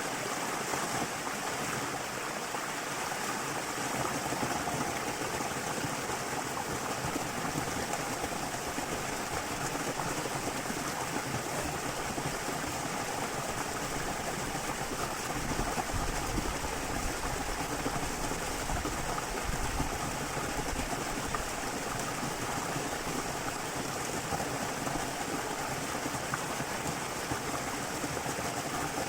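Small waterfall running: a steady rushing and splashing of falling water, with a deeper rumble for a few seconds midway.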